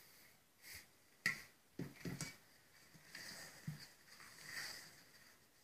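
Faint bowl and spatula handling: a glass bowl tipped over a stainless steel mixing bowl, then a wooden spatula folding the mix, making a few soft taps and scrapes with one sharper click just over a second in.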